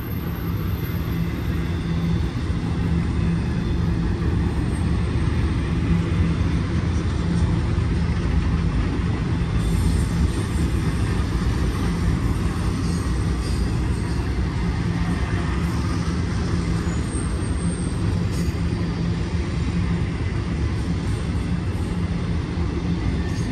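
Intermodal freight train cars carrying trailers rolling past close by: a steady low rumble of steel wheels on the rails, with a few faint clicks from the wheels and rail joints.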